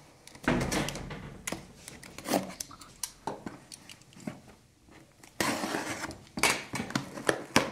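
A cardboard shipping box being handled and cut open with a utility knife: scattered knocks and taps as it is turned over, and a longer scraping rasp about five and a half seconds in.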